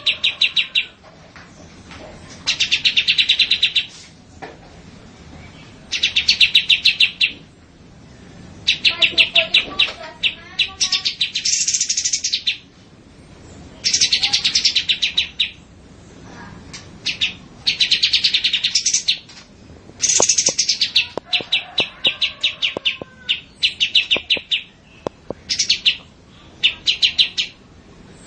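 Songbirds singing, as on a birdsong training track: bursts of fast, rattling trills about a second long, repeated every couple of seconds, turning into shorter, choppier bursts in the last third.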